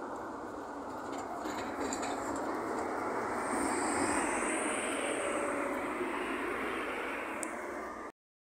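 Articulated Mercedes-Benz Citaro city bus driving past close by over street traffic. Its engine and tyre noise swells to a peak about four seconds in, with a high whine, then eases off. The sound cuts off suddenly near the end.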